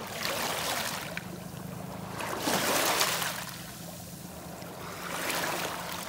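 Small waves washing up over a pebble beach, three washes, the loudest about two and a half seconds in, with a faint steady low hum underneath.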